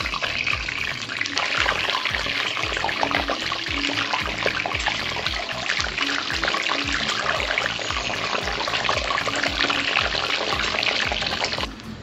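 Whole boiled eggs frying in hot oil in a wok, the oil sizzling and spattering with a dense crackle that stops suddenly near the end. Background music with a steady beat plays underneath.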